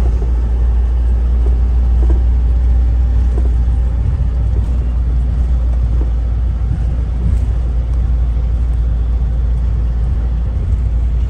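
Steady low rumble of a 30-seat coach's engine and running gear, heard from inside the cabin as the coach pulls away.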